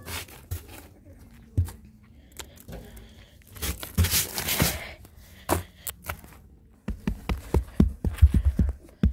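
Hands raking and mixing sand and soil, gritty scraping and rustling with scattered knocks. A longer rush of scraping comes about four seconds in, and a quick run of thuds near the end.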